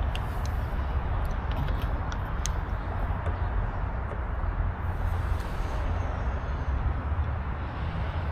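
A few light clicks and taps in the first few seconds as a small screwdriver is fitted into the door handle's fastener, over a steady low rumble.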